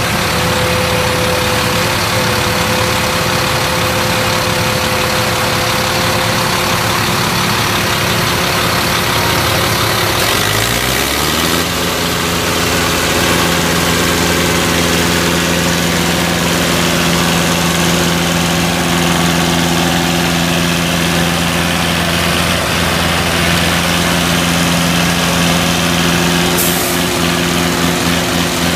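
Perkins four-cylinder diesel engine of a General Power Commander tractor running at idle. About ten seconds in it speeds up, then holds steady at the higher speed.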